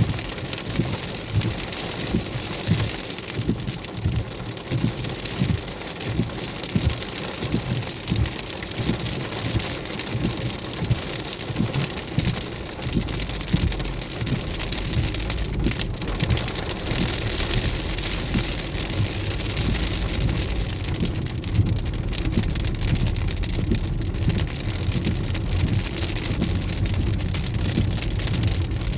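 Hailstorm with rain: a dense, steady patter of falling hailstones and raindrops striking hard surfaces, with a low rumble building from about halfway through.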